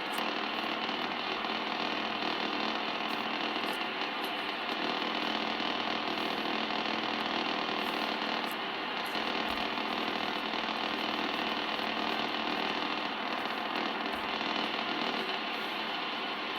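Drake R4B shortwave receiver's speaker giving a steady hiss of band noise on 15 meters, with only faint ticks left of the impulse noise: the noise blanker is switched in and blanking it.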